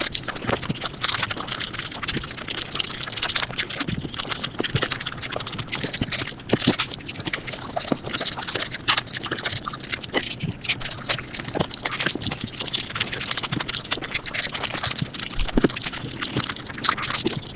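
Mukbang eating sounds sped up about five times: chewing and biting turned into a dense, unbroken run of rapid clicks and crackles.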